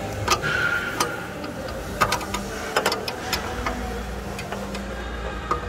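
Irregular sharp metal clicks and knocks of a wrench working on the downstream exhaust O2 sensor, over a steady low hum.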